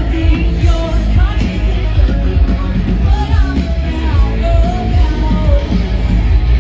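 Loud rock music with a singing voice over heavy bass and drums.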